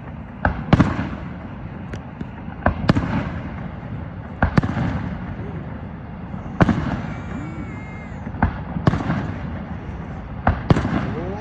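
Fireworks going off: about a dozen sharp bangs at uneven intervals of a second or two, each trailing off in a rumbling echo, over a steady low rumble.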